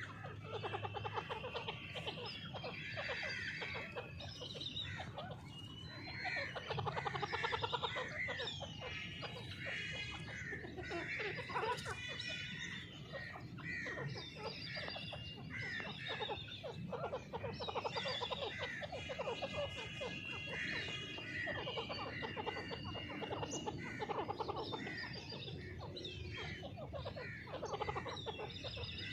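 Grey francolins calling: several birds' repeated calls overlapping without a break.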